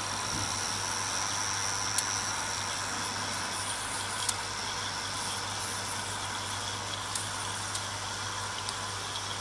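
Mamod SE3 toy steam engine's brass boiler heating over its square brass methylated-spirit pot burner, the water coming up to the boil: a steady hiss and simmer with a few faint clicks.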